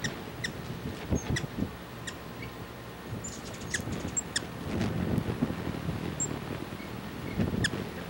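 Hummingbirds giving short, high chip and squeak calls, scattered irregularly and sometimes in quick pairs, over low gusts of wind on the microphone.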